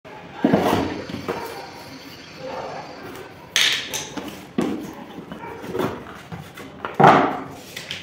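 A cardboard product box being handled and opened on a hard floor: a series of short thumps and scrapes of cardboard, the loudest about seven seconds in.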